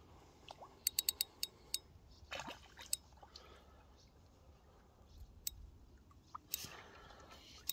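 Faint splashing from a small barbel thrashing at the water's surface as it is drawn in on the line, heard as a quick run of sharp splashes in the first two seconds and a few more later. Near the end comes a short rush of water as the landing net is brought under the fish.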